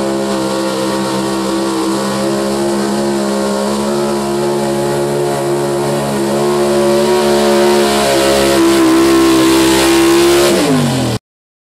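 Square-body Chevrolet 4x4 pull truck's engine at full throttle dragging a pulling sled: a loud, steady engine note that grows louder about seven seconds in, then drops quickly in pitch as the engine winds down at the end of the pull, and the sound cuts off abruptly.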